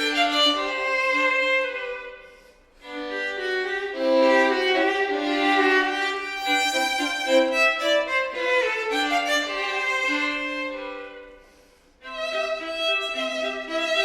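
Classical music on bowed strings, led by violin, in slow held notes. Phrases die away almost to silence about three seconds in and again near twelve seconds, each time followed by the next phrase.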